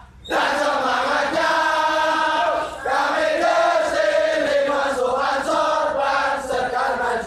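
A large group of men chanting a yel-yel cheer in unison, in held, sung pitches. The chant breaks off briefly just after the start and again about three seconds in.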